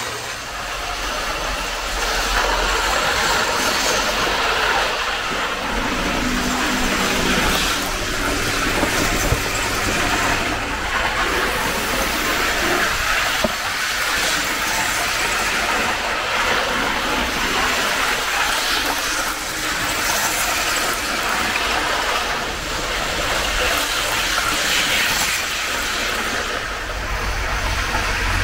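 Hornby APT model train, fitted with a replacement ringfield motor kit, running around 00 gauge track: a steady running noise of wheels on rail and motor, swelling slightly as the train passes close, with an odd sharp click. The motor is running smoothly, "like a little dream".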